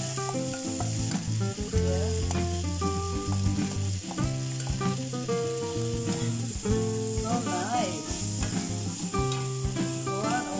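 Rice, vegetables and meat sizzling in a hot frying pan while a metal spoon stirs and scrapes through them, under background music with a steady bass line.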